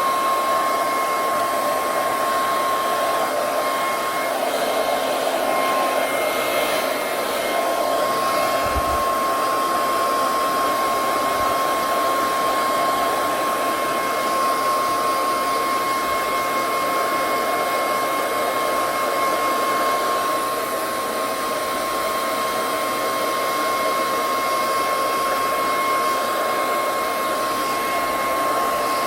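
Hand-held hair dryer running steadily, a constant blowing rush with a steady whine, drying a kitten's wet fur.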